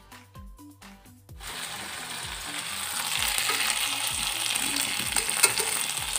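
Background music with a steady beat, then about a second and a half in, loud sizzling of sauce-coated tofu cubes being stir-fried in hot oil in a metal wok, with the metal spatula scraping and clicking against the pan. One sharp clack near the end.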